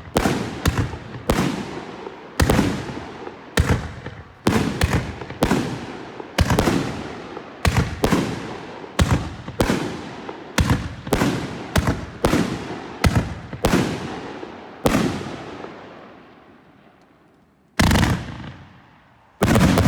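112-shot mixed-calibre fireworks cake (30, 38 and 50 mm shells) firing: aerial shells bursting in a steady run of sharp bangs, about one to two a second, each trailing off in a fading rumble. The bursts stop for a few seconds near the end, then two more loud bangs follow.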